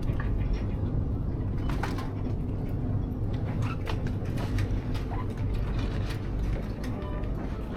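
Supermarket background noise: a steady low rumble with scattered light clicks and knocks.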